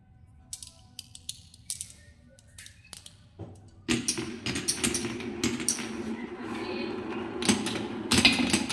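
Glass marbles clicking together in a hand, then from about four seconds in several marbles rolling along a wooden marble run with a steady rolling rumble and frequent clacks, growing louder near the end.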